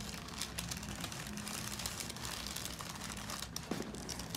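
Continuous crinkling and rustling, many small crackles close together, from the patient shifting on a chiropractic treatment table, over a faint low hum.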